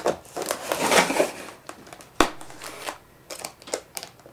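Clear packing tape on a cardboard box being slit and picked at with an X-Acto knife: crinkling and scraping for about the first second and a half, then a single sharp tap about two seconds in and a few lighter ticks near the end.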